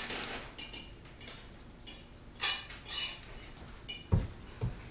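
Scattered light clinking, then two dull thumps about four seconds in, half a second apart, as a gymnast's hands and feet land on the floor during a front walkover.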